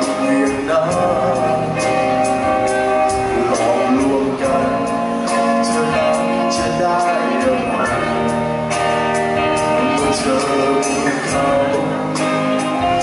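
Live band music from a stage PA: electric guitar and a sustained lead melody, over repeated percussive strikes.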